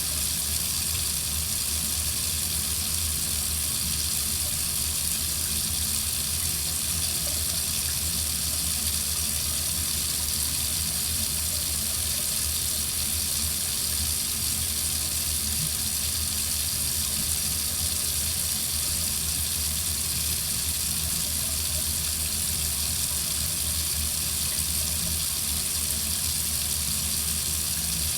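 Tap water running steadily from a faucet into a sink, an even rushing hiss with no change.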